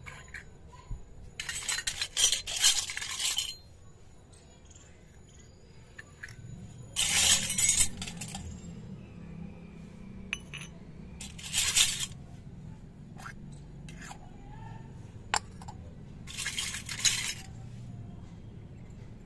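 Miniature stainless-steel toy cups, bowls and a tiny lidded pot clinking against each other and tapping down onto concrete as they are handled and set out. The sound comes in four short bursts of clattering, with a few single taps between.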